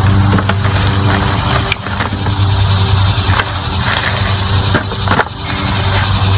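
Sweet potatoes being dropped into a plastic bucket: a few irregular knocks and clunks. Under them runs a loud, steady motor hum.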